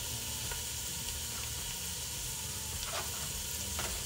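Bacon sizzling steadily in a frying pan, with a couple of light knocks near the end.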